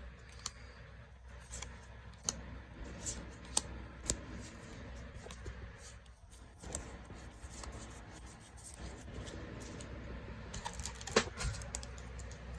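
Magic: The Gathering trading cards being handled and flipped through, with scattered light clicks and soft sliding rustles.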